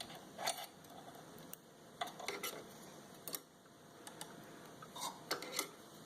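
Faint, scattered small clicks and taps, a handful of them, from hands and tweezers working thread through the guides of a serger.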